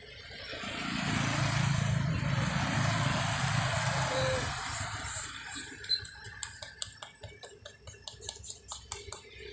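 A vehicle passing by: a low rumble and rushing hiss that swells over the first second, holds, and fades away about five seconds in. After it comes a run of small, irregular clicks and crackles, one sharper than the rest.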